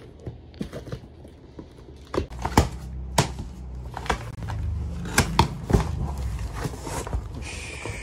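A large cardboard carton being cut open with a utility knife and unpacked: scraping and slitting of tape and cardboard, with a run of sharp clicks and knocks as the flaps are handled, and a brief rustle near the end.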